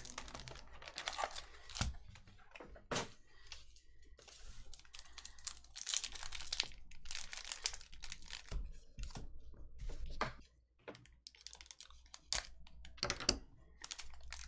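Foil trading-card pack wrapper crinkling and tearing as it is handled and peeled open, in irregular crackles and snaps with a short lull past the middle.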